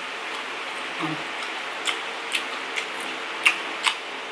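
Close-mouth chewing of crunchy fried pungko-pungko street food: a run of sharp crunches and smacks, coming more often in the second half, over a steady hiss, with a brief 'mm' about a second in.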